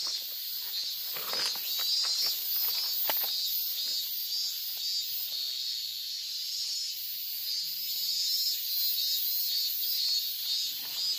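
High-pitched insects buzzing steadily in pulsing waves, with a few short rustles.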